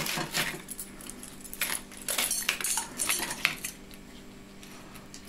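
Steel bicycle spokes from a Brompton rear wheel clinking and rattling against each other and the hub as they are pulled out, in several short spells of light metallic clicks.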